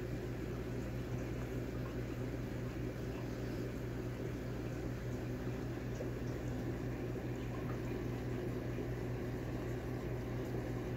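Steady low hum of running aquarium equipment, with a faint watery hiss over it.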